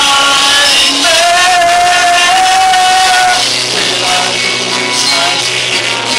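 Men singing. One voice holds a long, steady note from about a second in until past the middle.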